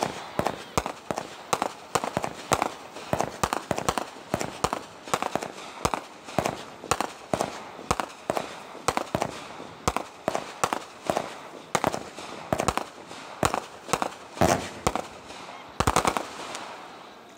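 Fireworks going off in a rapid, steady string of sharp bangs, about three a second, as small aerial shells burst one after another. There are a couple of louder, longer bursts near the end.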